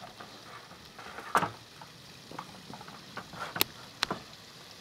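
Metal top-cap railing pieces being handled and pressed together at a mitered corner: a handful of separate knocks and sharp clicks, the loudest about a second and a half in.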